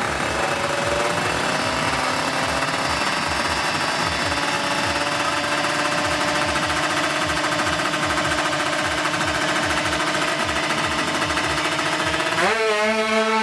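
Two-stroke engine of a tuned 155cc Kawasaki Ninja drag bike running at a rapid, uneven putter, then revved up quickly near the end.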